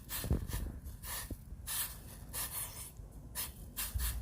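Water with ginger and lemongrass heating in a pot on the stove, kept just below the boil, giving irregular short soft crackles and hiss.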